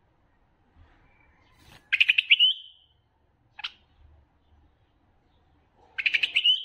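White-eared bulbul singing: two short phrases of quick bubbly notes about four seconds apart, each ending on a held whistle, with a single short note between them.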